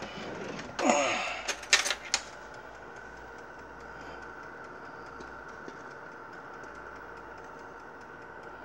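A brief rustle and three quick, sharp clicks about two seconds in, then a steady low hum with a faint high whine.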